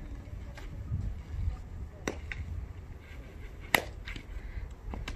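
Sharp cracks of a fungo bat hitting a softball. The loudest comes about three-quarters of the way in, with fainter knocks about two seconds in and near the end, over a low rumble.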